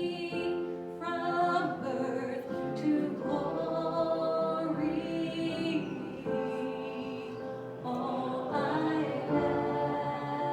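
Voices singing together in church worship, in long held notes.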